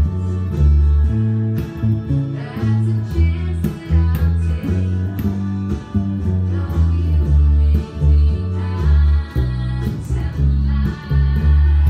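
Fender Precision electric bass, fingerpicked, playing a bass line in the key of A along with a country recording that has a singing voice and guitar.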